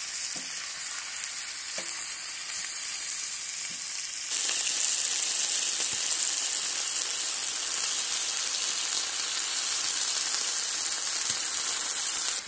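Pork and raw chicken pieces sizzling in hot oil on a steel saj pan: a steady frying hiss that gets louder about four seconds in, with a few faint knocks.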